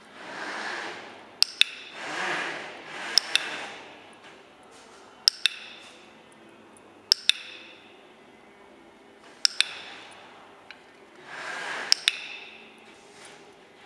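Dog-training clicker clicking six times, each a sharp double click-clack with a light metallic ring, about every two seconds, marking the dog's nose touches on a target. Softer rustling noises come between the clicks.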